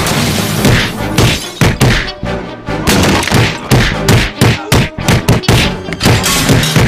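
Cartoon fight sound effects, a rapid run of punches, thuds and crashes several times a second, over background action music.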